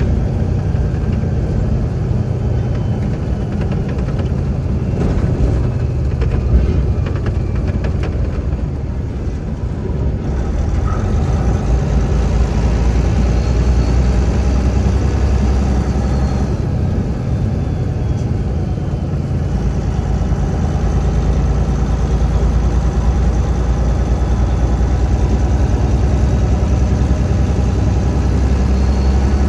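Heavy truck's diesel engine running steadily, a deep low hum that rises slightly about ten seconds in.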